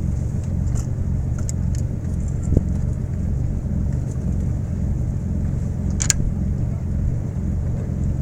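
Boat engine running steadily, an even low rumble, with two brief clicks, one about two and a half seconds in and one about six seconds in.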